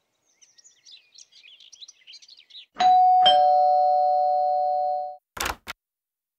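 Faint bird chirps, then a ding-dong doorbell: a higher tone and a lower one half a second apart, ringing on for about two seconds. Near the end come two sharp clicks as the door's latch is drawn back.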